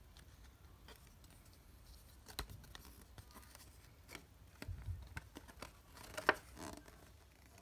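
Folded paper cassette insert being unfolded by hand: scattered paper crackles and rustles, the loudest crackle about six seconds in.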